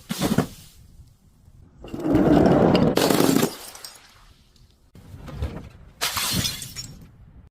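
Glass shattering and crunching in several separate bursts. The longest and loudest runs for about a second and a half, starting about two seconds in.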